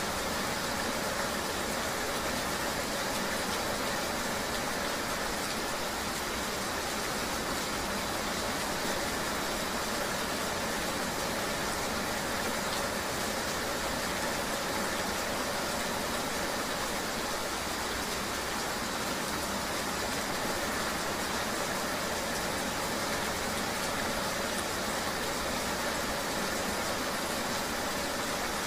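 Steady rain ambience mixed with a vehicle running, an even hiss with no separate sounds standing out.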